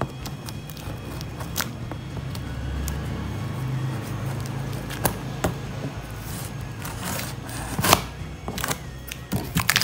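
Scissors cutting along the packing-tape seam of a large cardboard box, in scattered snips, scrapes and clicks, the loudest about eight seconds in.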